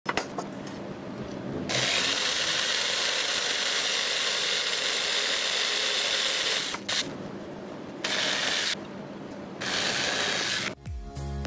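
Power drill boring holes into small wooden blocks. A few light clicks come first, then the drill runs in three bursts: one long, two short, with brief drops in between.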